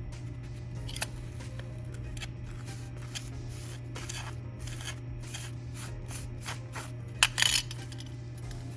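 Scraping, rubbing and light tapping as casting sand is pressed and levelled by hand around a metal die punch, with a short louder clatter about seven seconds in, over a steady low hum.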